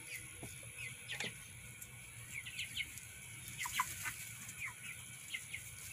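Young chickens cheeping as they forage: scattered short, high, falling peeps, one or two at a time.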